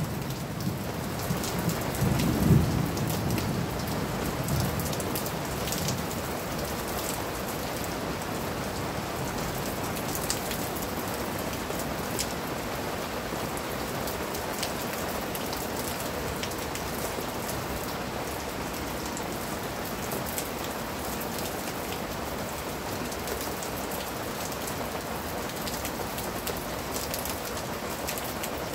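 Steady rain falling on broad garden leaves and wet paving, with occasional sharper drops close by. A low rumble of thunder swells about two seconds in and fades out over the next few seconds.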